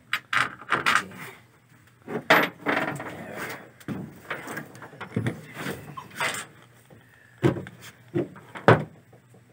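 Irregular knocks and clatter of tools being handled, including a corded power drill being picked up and moved about, with no drill motor running.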